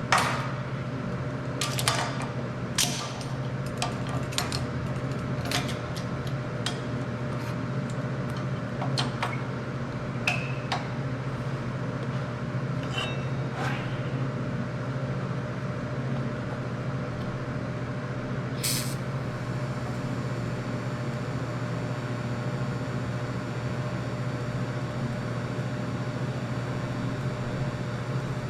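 Small metal parts and tools being handled on a workbench: scattered clinks and knocks in the first half and one sharp click about nineteen seconds in, over a steady low hum.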